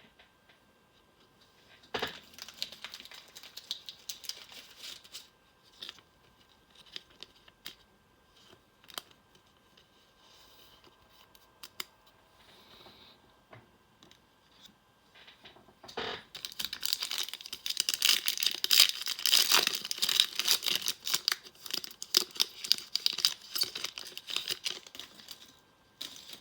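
Trading-card pack wrapper crinkling and tearing as the pack is handled and opened, with cards shuffling. There is a short spell of rustling about two seconds in, and a longer, louder spell of crackling through the second half.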